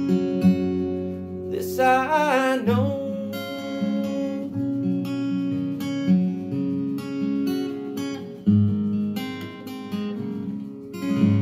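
Acoustic guitar playing the closing bars of a country song, picked and strummed chords. About two seconds in there is a wavering note that slides down and settles, and a last chord is struck near the end and left ringing.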